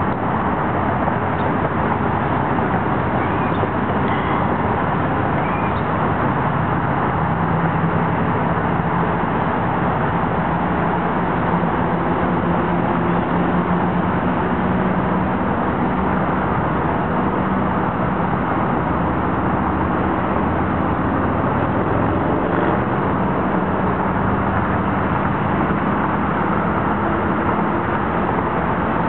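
Steady low drone of a river towboat's diesel engines as it passes on the river, growing stronger in the middle, over a continuous rushing background noise. A few faint high chirps sound in the first few seconds.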